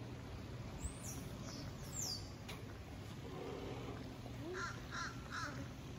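A crow cawing three times in quick succession about three-quarters of the way in, with a few high, falling bird chirps earlier, over a steady low outdoor background hum.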